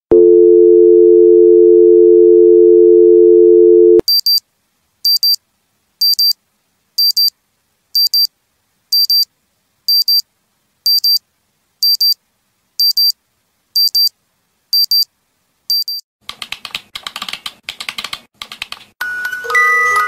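American telephone dial tone, a steady tone that cuts off after about four seconds. Then an analog watch alarm beeps high and short about once a second, around thirteen times, followed by a few seconds of ragged clicking. A baby's music box starts a tinkling tune near the end.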